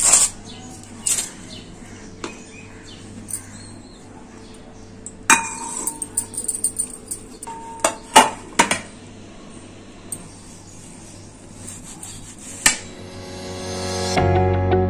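Aluminium foil crinkling as it is peeled off a stainless-steel kulfi mould. Then several sharp clinks and knocks of the steel mould against a ceramic plate as it is turned out to release the kulfi, one followed by a short metallic ring. Background music comes in near the end.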